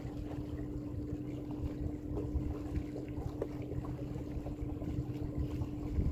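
Boat motor running steadily as the boat moves along, a constant hum over a low rumble.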